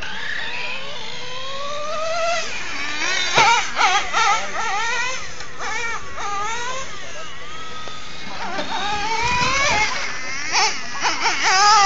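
A young child crying close to the microphone: long wavering wails that slide up in pitch, louder and choppier a few seconds in and again near the end.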